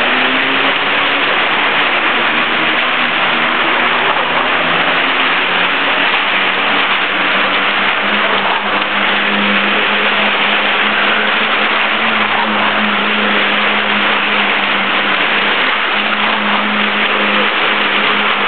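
A car circling the inside of a wooden wall-of-death drum, its engine held at steady revs under a loud, constant din.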